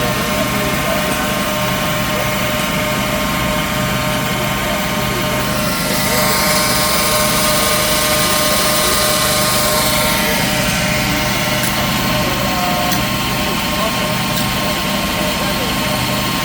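Steady hum of workshop machinery running, with a louder stretch of hissing noise about six seconds in that fades away about four seconds later.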